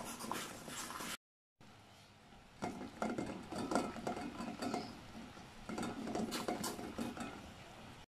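Stainless steel mixing bowl of a double boiler clinking and rattling against its pot in quick, irregular little clicks, broken by a short silence about a second in.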